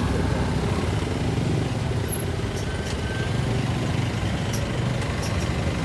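Motorcycle being ridden at a steady pace: a steady low engine hum mixed with road noise.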